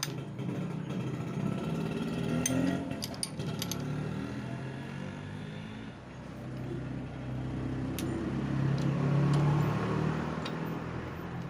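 A motor vehicle's engine running, swelling louder twice and easing off between, with a few sharp metallic clicks.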